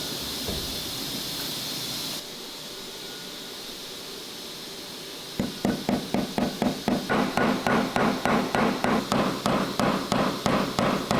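Faint steady hiss, then about five seconds in a hammer starts striking in a steady run of sharp blows, roughly three a second.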